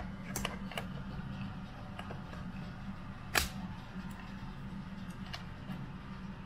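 Small clicks and handling noises as a weapon-mounted flashlight and its mount are pushed into place on a rifle's handguard, with one sharper click about three and a half seconds in, over a low steady hum.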